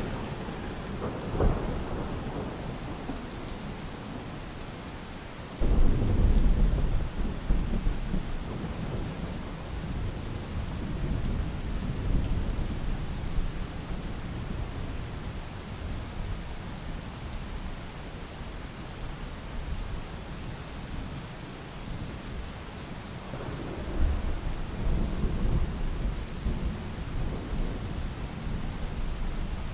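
Steady heavy rain with thunder: a sharp crack about a second and a half in, then a sudden loud low rumble a few seconds later that rolls on and fades, and another rumble near the end.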